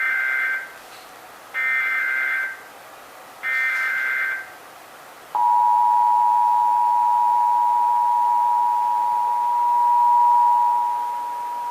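Emergency Alert System test: three bursts of the SAME header data, each about a second long and warbling between two high pitches, followed about five seconds in by the EAS attention signal, a steady two-tone note (853 and 960 Hz) that holds to the end.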